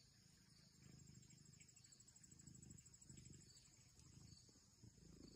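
Near silence, with a faint, steady, high-pitched insect trill, like crickets, pulsing evenly throughout.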